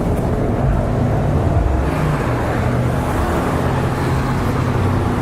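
Street traffic: the steady low hum of car engines and road noise going by.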